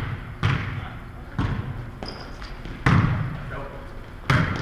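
A volleyball being bounced and struck in a large gymnasium: four sharp smacks, each echoing off the hall's walls, the loudest about three seconds in.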